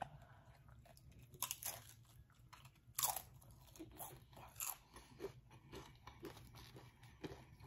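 A person chewing a mouthful of tortilla-chip nachos: a string of short, crisp crunches, the loudest about a second and a half in and again about three seconds in, then lighter chewing.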